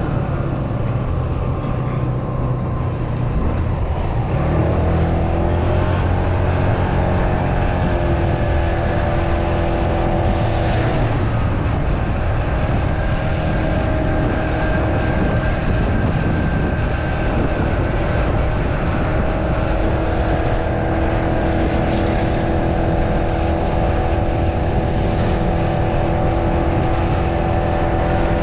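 Italika D125 125cc mini scooter running at cruising speed under a steady low rush of wind and road noise. A steady engine note comes in about four seconds in, fades near the middle, and returns for the last third.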